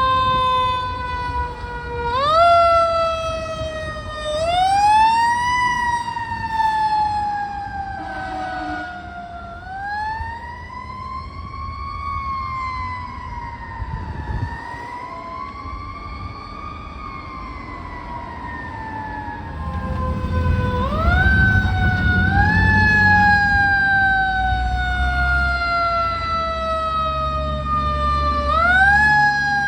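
Fire truck siren wailing. Its pitch sweeps up quickly and then slides slowly down, over and over, with a few slower rises and falls in the middle. A low truck-engine rumble grows louder about two-thirds of the way through.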